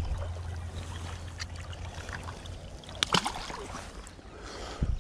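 Shallow river water trickling and sloshing around a wading angler, with a few sharp knocks about three seconds in and a low thump near the end.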